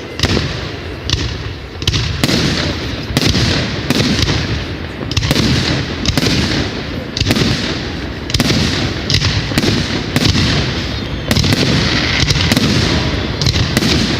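Fireworks going off: an irregular run of sharp bangs over a dense crackle, growing a little louder about three-quarters of the way through.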